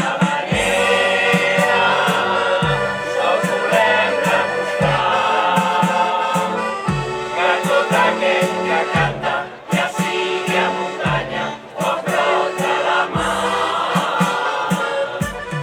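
Music with several voices singing together over a steady thumping beat.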